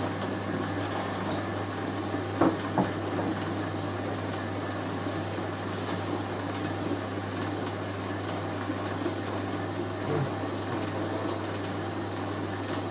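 Hoover A3060 Electronic 1100 washing machine draining at the distribution stage: the drain pump hums steadily while the drum turns to spread the load. Two brief knocks come about two and a half seconds in.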